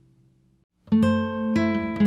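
Background acoustic guitar music: a held chord fades away, and just under a second in, new plucked notes start and ring on.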